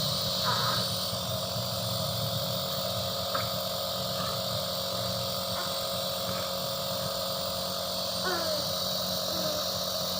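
Nebulizer compressor running with a steady hum. A couple of faint short falling squeaks come about eight seconds in.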